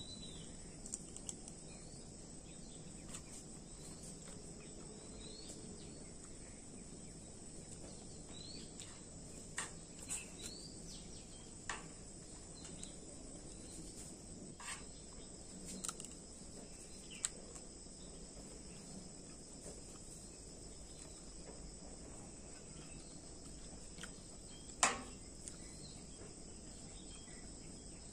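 Steady high-pitched chirring chorus of insects such as crickets, with scattered sharp clinks of a metal spoon and fork against a plate, the loudest near the end.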